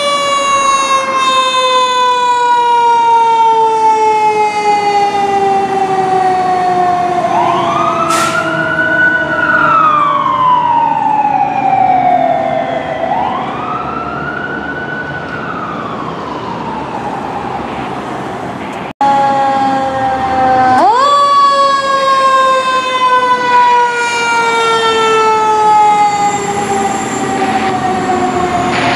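Sirens of a 2018 Pierce Arrow XT fire engine responding to a call. One siren winds up fast and then falls slowly in pitch for many seconds, while a second siren wails up and down twice over it. After a brief break about two-thirds through, the winding siren climbs again and falls slowly.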